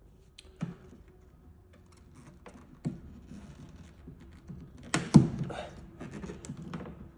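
Scattered light clicks and knocks of a pick tool and hands working the clips of a Porsche 911 (992) door handle, with the loudest cluster of knocks about five seconds in.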